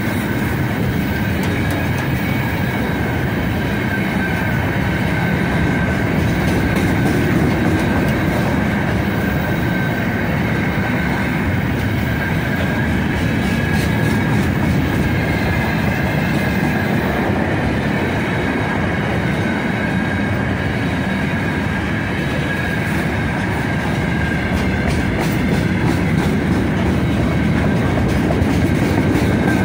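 Freight train of open gondola wagons rolling past close by at speed: a steady heavy rumble of steel wheels on the rails, with clicks from the rail joints and a steady high ringing tone over it.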